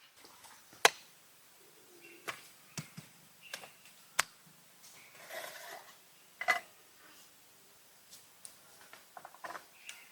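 Sparse, irregular sharp clicks and knocks of handling things, with a brief rustle in the middle and a quick run of small clicks near the end.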